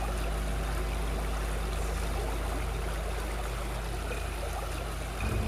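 Water running and trickling steadily over a low, steady hum. Just before the end, steady low tones come in.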